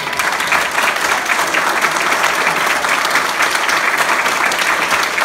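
Wedding guests applauding steadily, a roomful of hands clapping at once, greeting the couple's first kiss as husband and wife.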